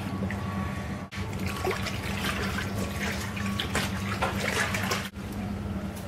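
Vintage Westinghouse wringer washing machine agitating a load of clothes: water sloshing in the tub over the steady low hum of its electric motor, a quiet-running machine.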